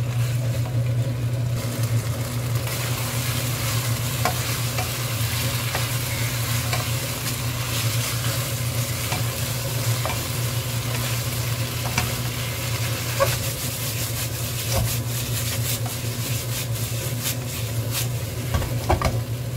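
Chicken and sweet potato in gochujang sauce sizzling in a wok as they are stir-fried, with the utensil clicking and scraping against the pan now and then. A steady low hum runs underneath.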